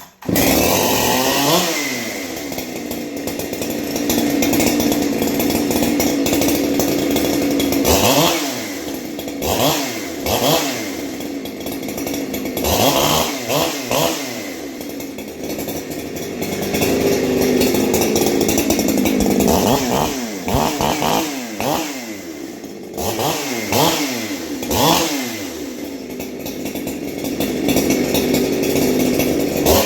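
Ported 372XP-clone two-stroke chainsaw catches right at the start, then idles and is revved hard again and again, its pitch shooting up and dropping back with each throttle blip.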